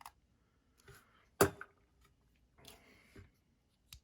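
TRM Atom folding knife handled and snapped shut, one sharp metallic click about a second and a half in, with lighter clicks and a short scratchy rustle of handling around it. The closing makes an odd noise that the owner takes for something off inside the knife.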